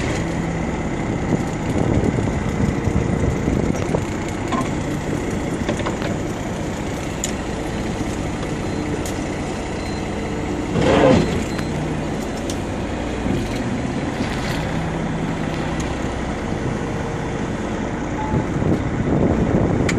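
Fishing boat's engine running at idle, a steady drone with wind and water noise over it; a short louder sound breaks through about halfway.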